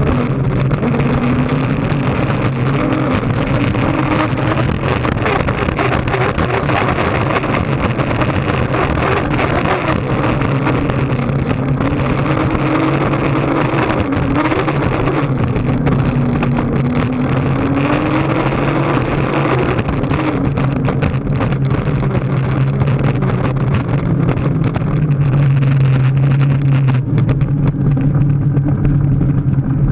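Racing hydroplane's engine running hard at speed, heard from inside the enclosed cockpit over the rush of wind and water on the hull. The drone holds steady, its pitch wavering up and down, and grows a little louder in the last few seconds.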